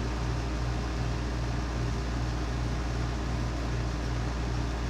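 Steady radio static from a receiver's speaker, an even hiss over a low hum, with no station audible.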